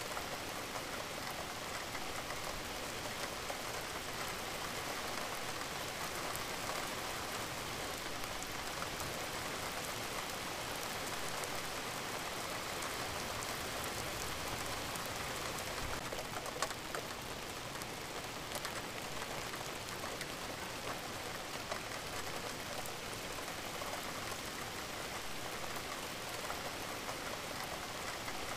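A steady rain-sounds track: an even hiss of rainfall with the patter of many scattered drops, and one sharper tick about sixteen seconds in.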